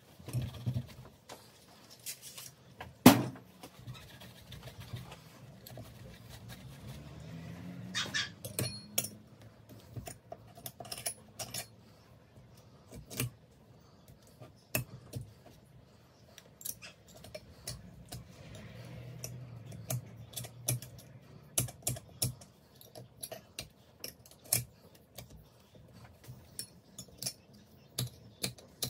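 Turbocharger parts and small metal hand tools being handled on a workbench, giving scattered sharp clicks, taps and light scrapes. There is one loud knock about three seconds in.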